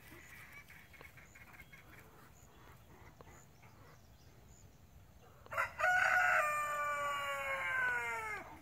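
A rooster crowing once: one long call of about three seconds, starting about five and a half seconds in and dropping in pitch as it ends. Faint bird calls come before it.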